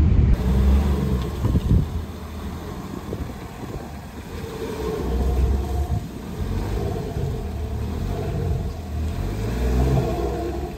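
Jeep Renegade's engine running at low speed, heard from outside the car, its pitch rising and falling a few times.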